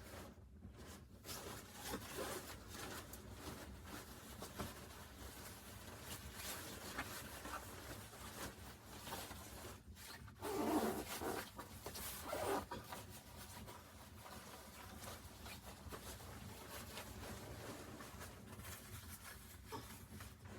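Irregular rustling and scraping handling noises over a low steady rumble, with a louder scrape about ten seconds in and another shortly after.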